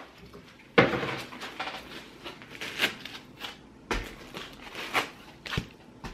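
Clear plastic wrapping and box packaging rustling and crinkling in several short, separate handlings as a boxed device is lifted out, with a brief soft knock near the end.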